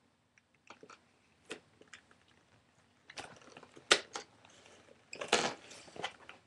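Crinkling, crackling and clicking of plastic packaging and tape being picked at by hand, in irregular short bursts, the loudest a sharp click about four seconds in.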